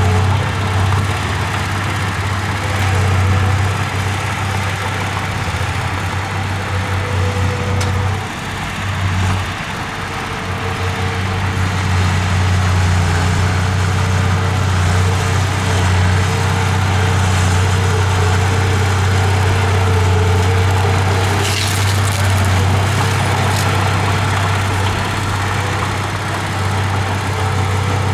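Heavy construction machine's diesel engine running steadily, dipping briefly about eight seconds in before picking up again.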